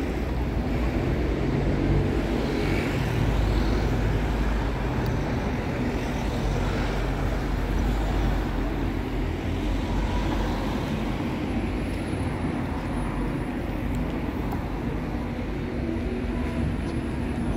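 Steady road-traffic noise at a busy city junction: cars, vans and buses running past in a continuous low rumble.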